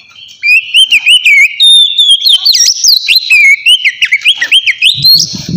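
Oriental magpie-robin singing a loud, fast, varied whistled song of sliding notes mixed with sharp high chips, starting about half a second in. A few low thuds come near the end.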